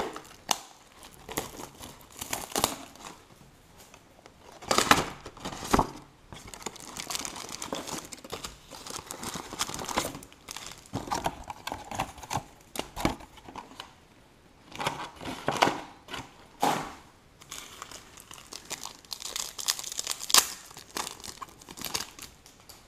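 Foil trading-card pack wrappers being torn open and crumpled: irregular crinkling with several sharp, louder rips.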